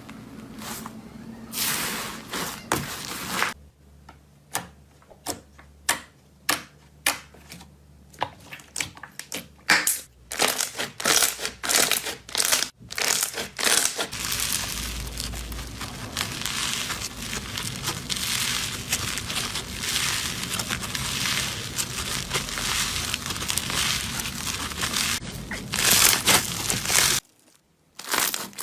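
Slime being squeezed and pressed by hand, making crackling pops: scattered separate pops at first, then a dense, continuous crackle from about halfway that stops abruptly shortly before the end.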